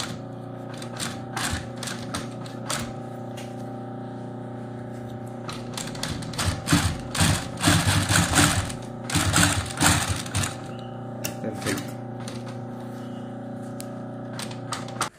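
Industrial post-bed sewing machine stitching a shoe upper: its motor hums steadily while the needle runs in short spurts of rapid clicking, busiest and loudest from about six to ten seconds in.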